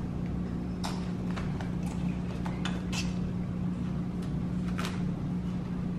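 Scattered light clicks and rustles of a dish and cling film being handled, over a steady low hum.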